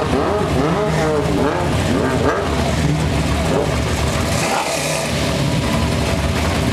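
Nitrous Chevy Nova drag car's engine idling roughly, its pitch rising and falling in short throttle blips for the first couple of seconds, as the car creeps up to the staging lights after its burnout.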